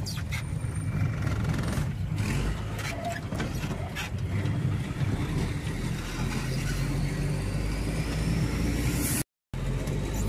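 Truck engine running at a steady drive with road noise, heard from inside the cab, and a few knocks in the first seconds. A faint high whine slowly rises in pitch over the second half, and the sound drops out briefly about nine seconds in.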